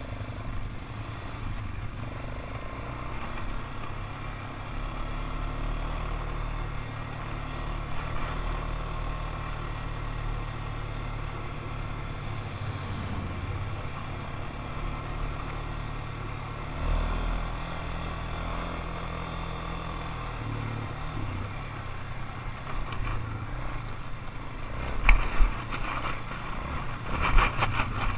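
ATV engine running while being ridden, its pitch shifting now and then with the throttle. Near the end there are two loud knocks and rattles.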